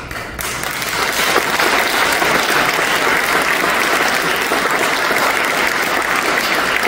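Audience applauding, building over the first second and then holding steady.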